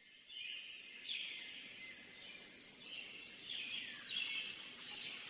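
Faint birds chirping, with several high calls that fall in pitch.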